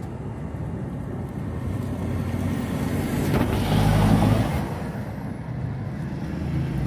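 A motor vehicle's engine running nearby, a steady low rumble that rises to its loudest about four seconds in and then eases off.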